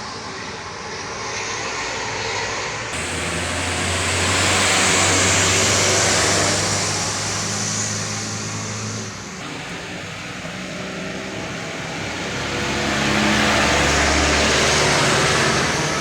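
Motor vehicles passing on a road: engine and tyre noise swell twice, loudest about five seconds in and again about fourteen seconds in, each time with a low steady engine drone.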